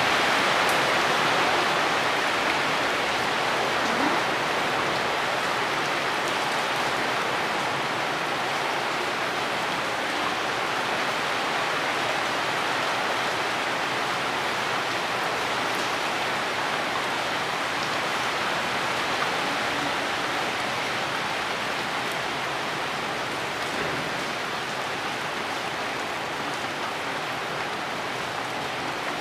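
Steady rainstorm downpour falling on tree foliage, an even hiss that eases slightly toward the end.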